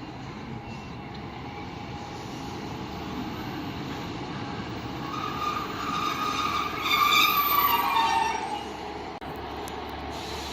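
Train running at a station with a steady low rumble. About five seconds in, a loud high-pitched tone swells up, is loudest around seven to eight seconds in, then drops in pitch and fades.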